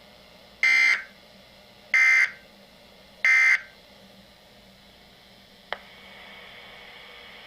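Emergency alert data bursts: a SAME header sounding three times as short harsh buzzes, each about a third of a second and about 1.3 s apart, the coded signal that opens a broadcast weather alert. A low hiss follows with a single faint click.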